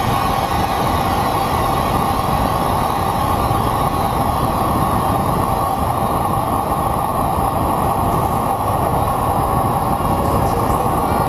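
Steady wind rush on a bike-mounted camera's microphone, mixed with tyre noise on asphalt, as a road bike descends at speed.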